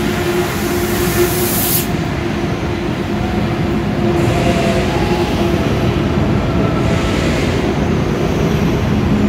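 Train running at a station platform: a steady loud rumble with a humming tone, with a few bursts of hiss, the longest near the start.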